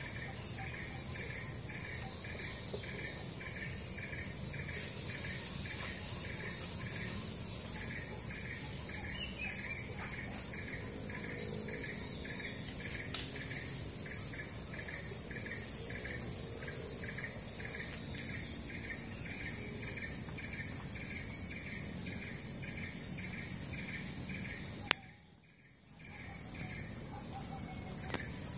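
Forest insects calling in a steady chorus: a loud high buzz pulsing rapidly and evenly, with a softer pulsing band below it. About 25 seconds in there is a sharp click, and the sound drops away for a second or so before the chorus returns.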